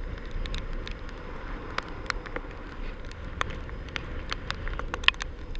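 Storm wind buffeting the microphone in a steady low rumble, under a hiss of wind-driven rain and surf, with irregular sharp taps of raindrops striking the recording device, one harder tap about five seconds in.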